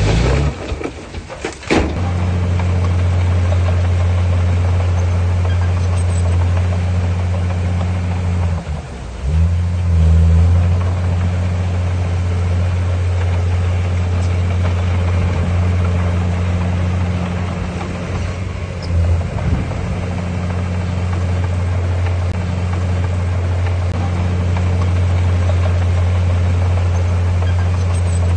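Heavy diesel engine of earth-moving machinery running steadily with a deep, even drone, with a few knocks about a second and a half in and a brief dip in level about nine seconds in.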